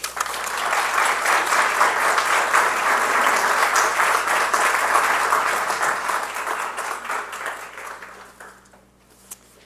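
Audience applauding, starting at once and dying away about eight seconds later.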